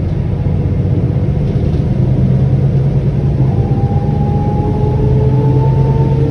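Solaris Urbino 18 III articulated bus running, its DAF PR228S3 diesel engine with a steady low drone. From about halfway through, a whine slowly rises in pitch as the bus picks up speed.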